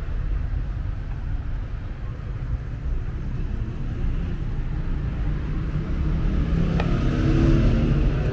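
City street traffic: a steady low rumble of cars and motorbikes passing, growing louder as a vehicle passes near the end.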